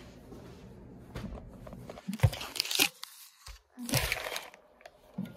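Close handling noise: plastic crinkling and rustling with a few knocks, loudest about two seconds in and again about four seconds in.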